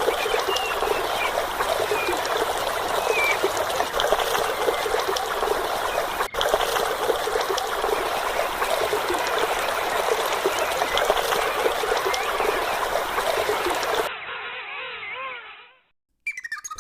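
Water trickling steadily in a thin running stream. About fourteen seconds in it gives way to a fainter, muffled sound that fades out.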